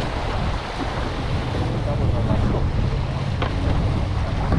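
Wind buffeting the microphone over open water, a steady low rumble with water splashing under it and a faint knock about three and a half seconds in.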